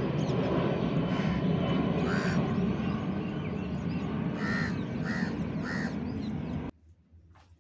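Jet airliner flying overhead, a steady broad rumbling noise, with crows cawing five times over it. The noise cuts off abruptly near the end.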